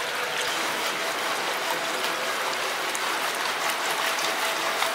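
Water running down a gem-mining sluice while a wooden screen box of gravel and gemstones is shaken in it, the stones rattling with many small clicks.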